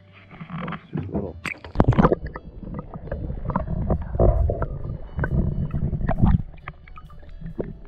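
Muffled underwater sound from a submerged camera: low rumbling and gurgling water broken by irregular knocks and clicks.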